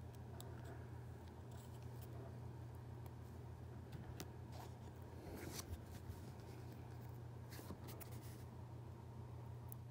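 Faint dry crackles and small clicks of a ripe, dried Tecoma stans (yellow bells) seed pod being peeled apart by fingers, heard mostly around the middle and again near the end, over a steady low hum.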